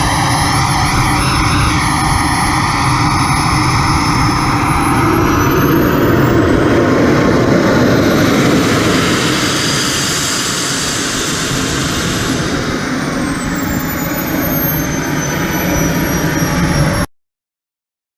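SWIWIN 190N turbine engine of a large RC sport jet running with a loud, steady roar and a high whine that climbs in pitch, peaks about halfway through, then falls away. The sound cuts off abruptly near the end.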